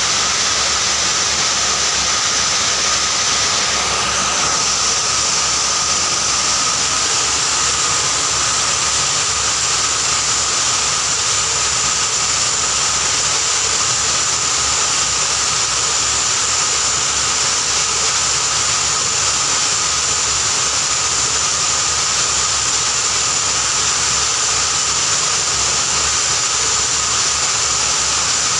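Sugar powder grinding machine running steadily, grinding sugar into powder: a loud, constant rushing noise with a steady high whine over it.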